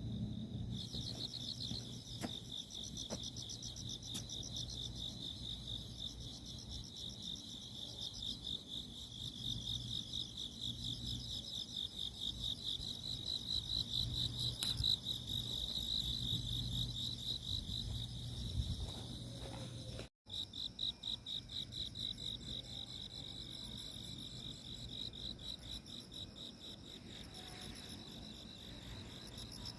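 Chorus of grass insects (crickets) chirping in a steady, rapidly pulsing high-pitched trill. The sound cuts out abruptly about twenty seconds in, then the chorus resumes with a slightly different pulse rhythm.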